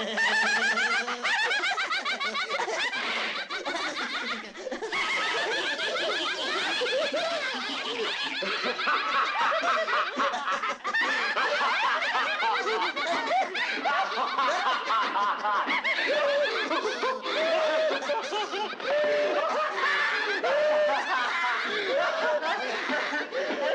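Several voices cackling and laughing together, overlapping and wavering quickly in pitch, without a break.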